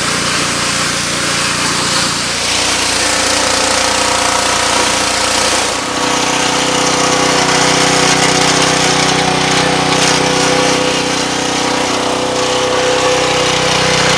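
Small gasoline engine of a pressure washer running steadily, with a hiss over it. Its note shifts about two and a half seconds in and again about six seconds in, when the hiss also gets brighter.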